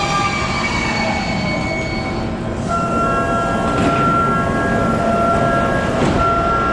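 Sotetsu 20000-series electric train braking to a stop, its motor whine falling slowly in pitch and fading. Then a repeating electronic chime sounds as the train and platform screen doors open, with a couple of short knocks from the doors.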